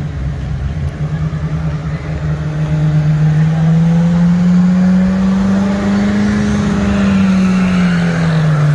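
Car engine revved hard and held at high revs through a burnout, spinning the tires. Its pitch climbs slowly for several seconds and then drops near the end.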